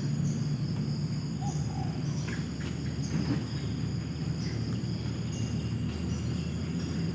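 Wetland insect chorus, a steady high-pitched trilling that swells and eases about once a second, over a low steady rumble.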